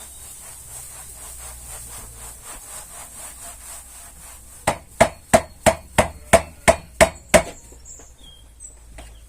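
Rapid light tapping or scraping strokes, then about nine loud, sharp knocks about three a second, starting near the middle and stopping a couple of seconds before the end, like something being struck with a hammer or against wood.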